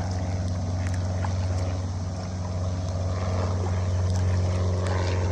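A motorboat engine running steadily, a constant low drone.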